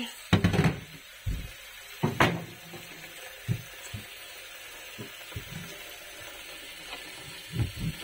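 A few knocks and clunks near the start, then kitchen tap water pouring steadily into a plastic water-filter jug in a stainless steel sink.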